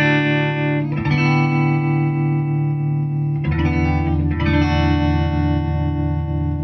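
Electric guitar chords ringing through a 1967 Fender Vibrolux Reverb amp with the vibrato at full intensity and slowest speed, struck again about a second in and twice more a few seconds later. The vibrato is there but its volume swell is pretty weak, the sign of a tired vibrato circuit.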